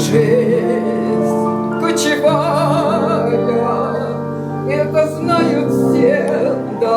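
A woman sings an operetta song in a classical, operatic style with strong vibrato, over piano accompaniment.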